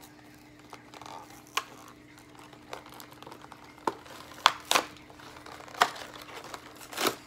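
Thin plastic packaging bag crinkling as it is handled and pulled open by hand, with scattered sharp crackles that grow louder and more frequent in the second half.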